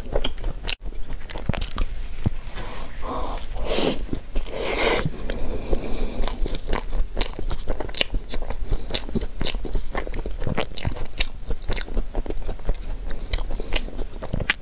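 Close-miked eating of a soft matcha crepe cake filled with cream and red bean: bites, chewing and lip smacks as many irregular small clicks. There is a brief dropout about a second in.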